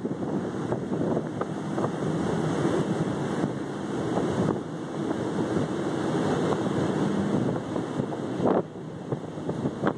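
Wind buffeting the microphone on the open deck of a cruise ship at sea: a steady rushing noise, with a brief bump about eight and a half seconds in.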